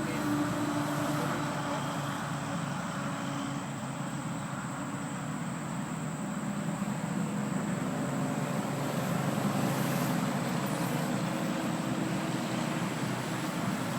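Electric motor and propeller of a radio-controlled 3D aerobatic model plane buzzing in flight, a steady drone whose pitch shifts slightly with the throttle.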